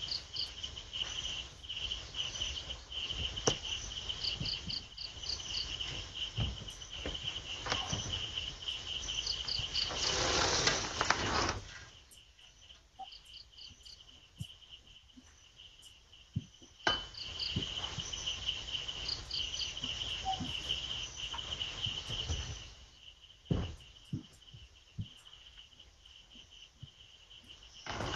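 Crickets chirping at night: a steady pulsing trill with short quick chirps over it and scattered knocks. About ten seconds in a loud rush of noise lasts a second or so, and twice the insects drop out for a few seconds.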